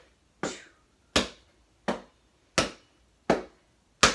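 Hands popping against a basketball as it is passed hand to hand around one leg: six sharp slaps, about one every three-quarters of a second.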